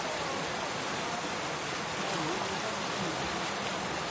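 Fast water rushing and churning white along a concrete edge, a steady, even rush.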